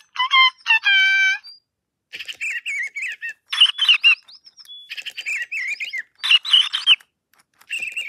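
Two electronic toy birds chirping at each other, a WowWee Sweet Tweets FingerLings bird and a sound-activated plush robotic bird. A short burst of pitched electronic tweets comes first, then after a brief pause several phrases of warbling, sliding birdsong-like chirps answer.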